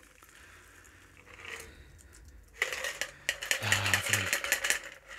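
Ice rattling and clinking inside a metal cocktail shaker tin while a shaken cocktail is double-strained through a fine-mesh strainer. The rattling starts about halfway through, after a quiet first half, and comes as a quick, dense run of clinks.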